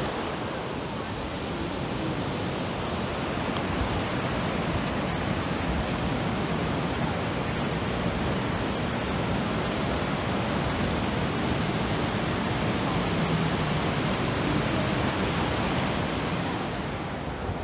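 A river rushing over rapids below a footbridge: a steady, even wash of water noise.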